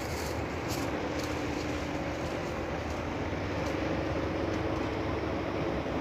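Boat engine running steadily, a low drone with a wavering hum that grows slightly louder about halfway through.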